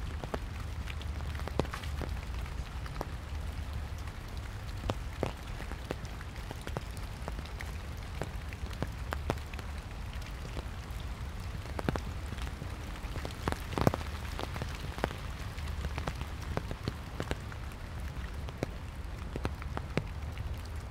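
Steady light rain falling, with close raindrops ticking at irregular moments, one louder tick about two-thirds of the way through, over a low steady rumble.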